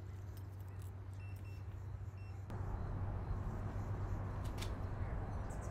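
Steady outdoor background rumble with a low hum, three faint short high beeps in the first half and a few light clicks; the noise grows fuller about two and a half seconds in.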